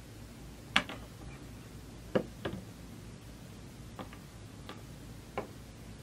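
Chocolate coating of a cream-filled snack cake cracking as it is pulled apart by hand, with bits of chocolate dropping onto a hard tabletop: about six short, sharp ticks spread a second or so apart.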